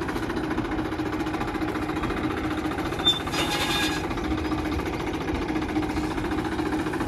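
Tractor engine running steadily with a fast, even throb as it pulls a plastic mulch-film laying machine along the beds; a brief hiss about three seconds in.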